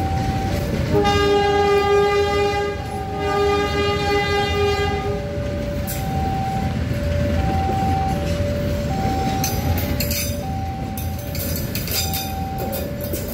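Gajayana passenger train pulling out of the station, its carriages rumbling past, with two long horn blasts in the first few seconds and wheels clicking over rail joints near the end. A level-crossing alarm alternates two notes steadily underneath.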